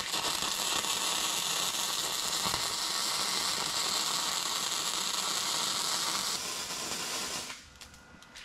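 Electric arc welding on a steel pipe: the arc gives a steady crackling hiss that cuts off about seven and a half seconds in.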